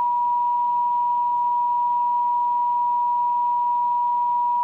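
NOAA Weather Radio warning alarm tone: a single steady tone near 1 kHz, held unbroken over faint receiver hiss. It is the alert that a severe thunderstorm warning message is about to be read.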